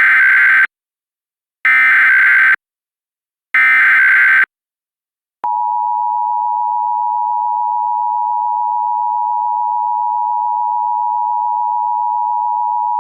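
Emergency Alert System signalling: three short SAME digital header data bursts, evenly spaced about two seconds apart. Then, about five and a half seconds in, the steady two-tone EAS attention signal begins and holds.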